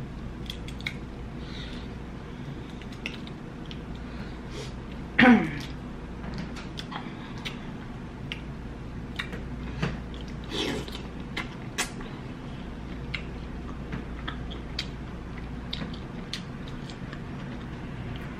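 Eating sounds from shell-on colossal shrimp being pulled apart by hand and chewed: many small sharp clicks and wet mouth smacks. One louder sound falling in pitch comes about five seconds in, and a smaller one near eleven seconds.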